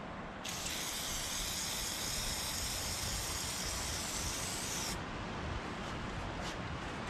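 Aerosol can of penetrating oil sprayed through its straw onto a rusty axe head: one continuous hiss of about four and a half seconds that starts and stops abruptly.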